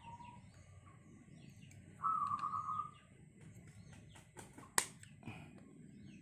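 Small birds chirping in the background, with a brief high-pitched whine lasting about a second about two seconds in. A few sharp clicks near the end come from small metal parts being handled as the pressure gauge is fitted back onto a PCP air rifle's carbon-fibre air tank.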